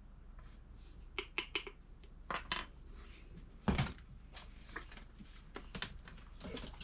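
Light clicks, clinks and knocks of small hard objects being handled on a workbench, with one louder knock about halfway through.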